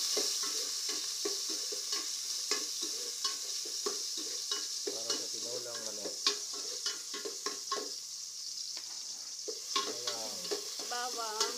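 Ginger sizzling as it sautés in a stainless steel pot, with a metal spoon clicking and scraping against the pot as it is stirred. The sizzle slowly dies down.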